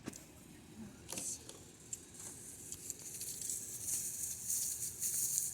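Hands handling ignition coil pack parts: a few light clicks about a second in, then a rustling, rattling sound that grows from about three seconds in.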